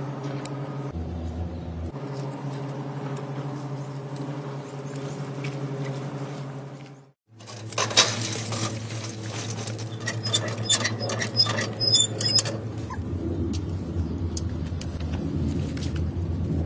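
Background music with low sustained notes. About eight seconds in, lit charcoal is poured from a chimney starter into a kettle grill, clattering and clinking for a few seconds.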